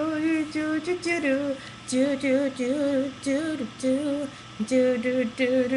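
A woman singing a melody in a series of short, wavering held notes, phrase after phrase with brief breaks between them.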